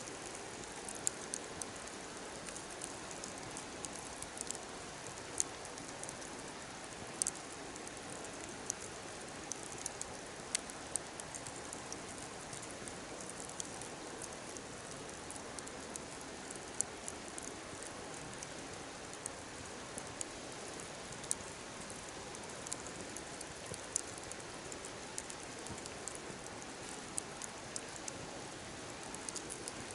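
Wood fire burning with a steady hiss and irregular sharp crackling pops.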